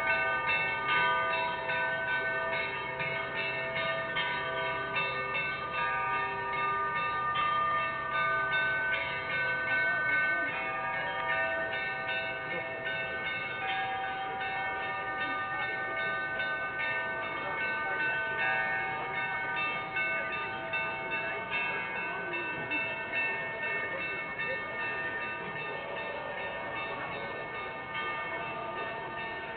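Church bells ringing: many overlapping ringing tones, each hanging on for a second or more, growing a little fainter toward the end.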